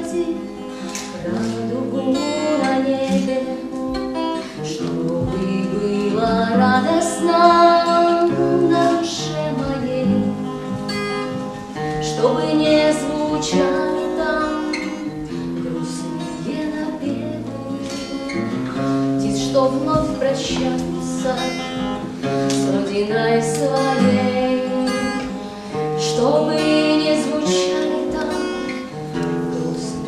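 A woman singing to her own strummed acoustic guitar accompaniment, with the guitar strummed in a steady rhythm under the melody.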